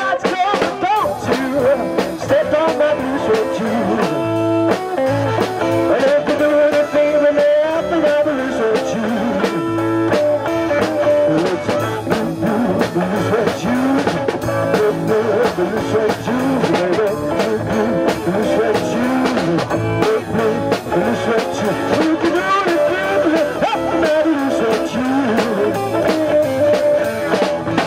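Live blues-rock band playing an instrumental passage: electric guitars with bending, gliding lines over bass and a steady drum beat.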